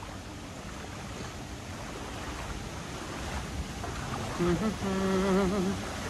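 Steady rush of stream water, growing slowly louder. Near the end a person's voice is heard briefly, drawn out with a wavering pitch.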